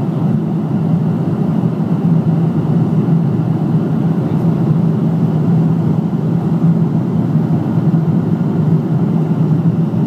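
Steady cabin noise of an airliner in flight: an even, unbroken drone of engines and rushing air, deep in pitch.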